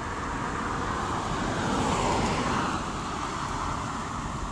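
A road vehicle passing on its tires, swelling to a peak about two seconds in and then fading, over a steady low rumble.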